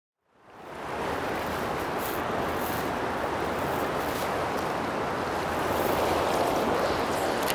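Steady rush of a wide, shallow river flowing over riffles, fading in from silence within the first second.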